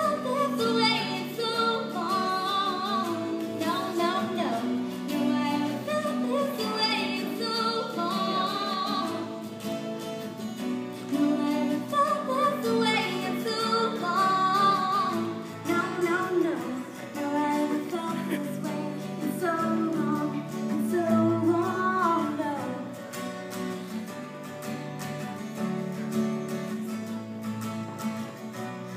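A woman singing a song with guitar accompaniment.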